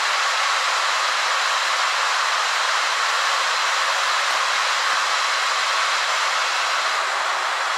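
AIRSEE GD3 nail dust collector's fan running steadily: an even rush of air with a few faint steady tones in it.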